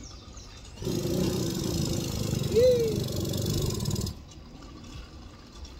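Motorized bicycle's small engine briefly catching as the rider tries to pedal-start it, running for about three seconds with one short rise and fall in pitch, then cutting out abruptly.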